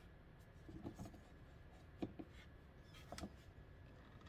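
Near silence with a few faint clicks and knocks of hand handling, about one, two and three seconds in.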